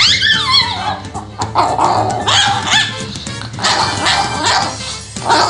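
Small Chihuahua growling and barking in several bursts of wavering, high yips, protesting being towel-dried after a bath, over background music.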